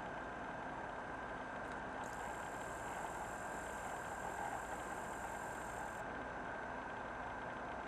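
Steady background hum and hiss with a faint constant whistle; a fainter high whine comes in about two seconds in and stops about six seconds in.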